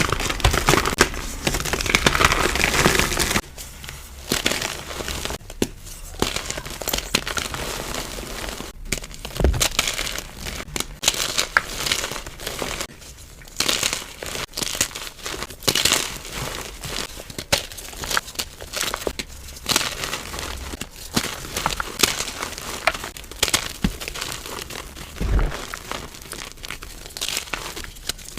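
Reformed gym chalk and cornstarch being crushed and crumbled, a steady crunching and crinkling crackle. It is dense and loud for the first few seconds, then turns into quieter, separate crunches.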